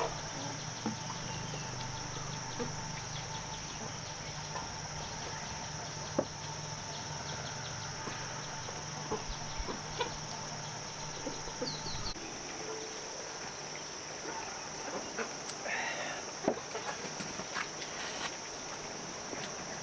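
Chickens clucking over a steady high insect drone, with scattered clicks and taps. A low hum runs underneath and stops about twelve seconds in.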